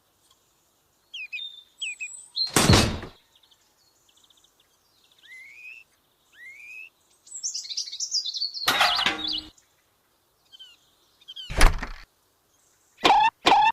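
Small birds chirping and tweeting, with short rising and falling calls, broken by a few brief knocks.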